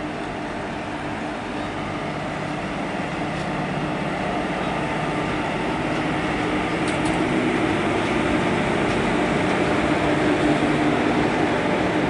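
WAP-4 electric locomotive and its passenger coaches rolling past, a steady rumble of wheels on rails with a steady hum that grows louder as the train draws level.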